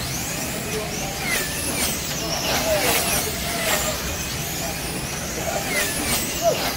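Several wing slot cars racing around the track, their small electric motors whining. The pitch rises and falls as the cars speed up and brake through the turns, with the steady hiss of the cars running along the slotted track and occasional clicks.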